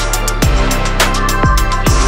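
Electronic background music with a steady beat of deep kick-drum hits, about two a second.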